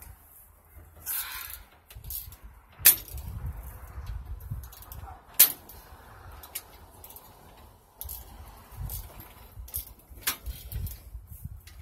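Scattered metallic clicks and clinks of hand tools working on the mini bike's handlebars and front fork, with two sharp clicks about three and five and a half seconds in, over low handling rumble.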